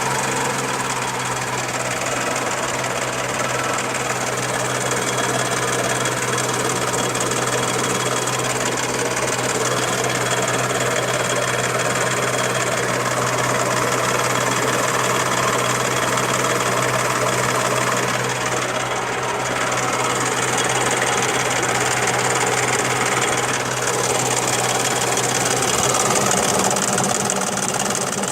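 Daihatsu Charade engine running steadily, with the strange noise the owner is showing: a constant low hum under a dense mechanical clatter and whirr that holds unchanged.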